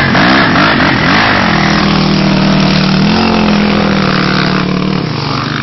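Dirt bike and quad engines running close by, revved up and down for the first second or so, then holding a steady note that steps up slightly about three seconds in and drops back near the end.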